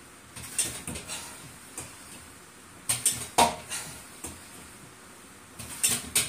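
Metallic clinks and clanks from a home weight-training machine worked through repetitions, coming in short clusters about every two and a half seconds.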